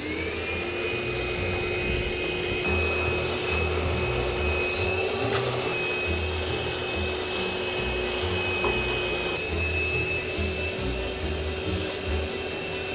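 Wet/dry shop vacuum switched on, its motor spinning up within a moment to a steady whine that holds. It is sucking bird-nest straw and debris out of an aircraft wing's light openings through its corrugated hose, with a few faint ticks as debris goes up.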